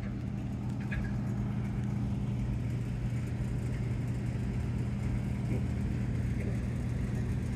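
Steady low mechanical hum of running rooftop machinery, a constant-pitched drone with a faint rushing noise over it.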